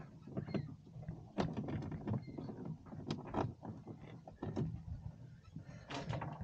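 Hands working a webbing hold-down strap over a boat battery: an irregular run of clicks, knocks and rustles, with a short scrape near the end.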